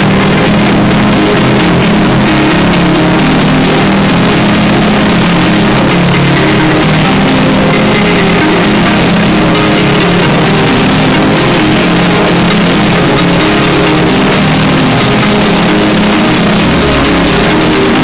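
Music played deliberately ear-splittingly loud and harshly distorted: a constant, maxed-out wall of sound with low pitched notes buried in noise that fills every pitch.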